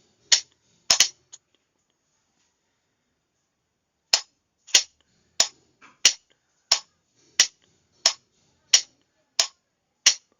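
Sharp clicks of a Morse signalling key being worked to send practice characters: a couple of clicks, a pause of about three seconds, then a steady run of about ten clicks roughly two-thirds of a second apart.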